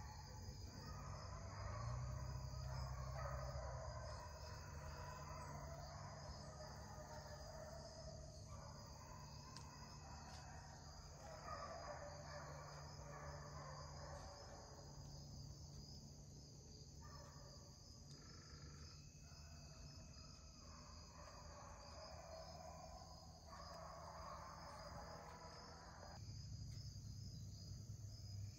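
Faint steady chorus of crickets, a thin high-pitched trill. A fainter sound in the middle pitches comes and goes three times, each spell lasting several seconds.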